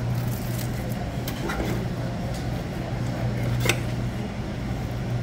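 Steady low machine hum of a cafeteria's ventilation, with a few light clinks of serving utensils against stainless-steel food pans, the sharpest about three and a half seconds in.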